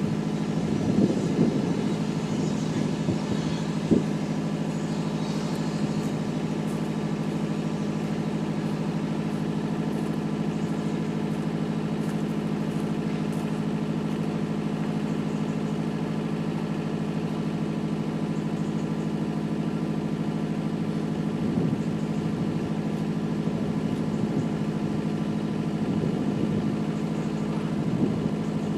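An engine idling steadily, a low even drone, with a single sharp clank about four seconds in.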